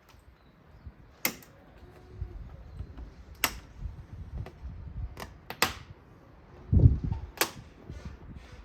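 Scattered sharp clicks and knocks of hand work on a car, about half a dozen spread out, with a dull thump near the end.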